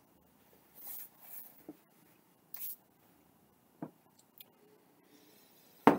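Quiet handling sounds: a paper napkin rustling about a second in, and a few small clicks, then near the end a single loud, sharp clink as two beer glasses are touched together in a toast.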